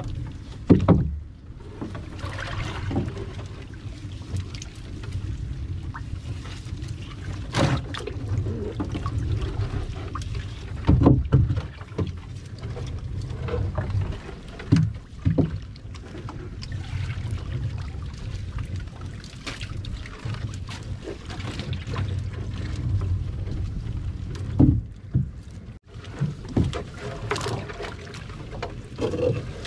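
Handling noise aboard a small fishing boat: scattered knocks and thuds as fish and a nylon net are moved about over the hull, over a steady low rumble.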